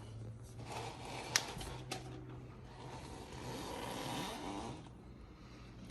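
Faint rustling and handling of hydraulic disc-brake parts being fitted to an e-bike's front fork, with two sharp clicks about half a second apart, over a low steady hum.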